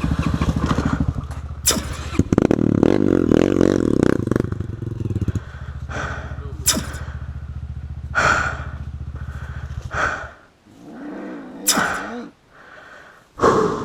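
Single-cylinder trail motorcycle engine running, revved up hard for a couple of seconds, then held lower before cutting out about ten seconds in. A few short sharp sounds come near the end.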